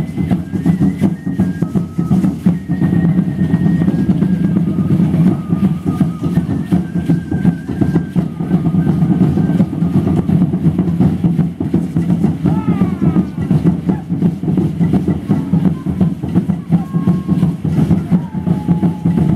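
Drum-driven music accompanying Mexica (Aztec) ceremonial dance: dense, steady drumming with a fast rattling texture. A few short held high notes sound over it, with a brief sliding note about two-thirds of the way through.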